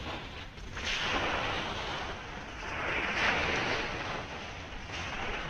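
Sea waves washing onto the shore at high tide, with wind buffeting the microphone as a low rumble. The surf swells to its loudest about three seconds in.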